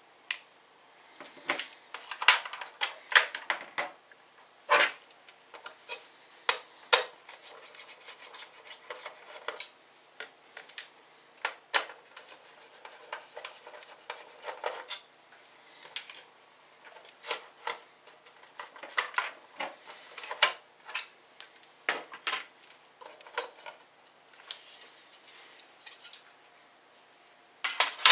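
Hands working on a laptop's plastic case and parts: irregular clicks, taps and scrapes.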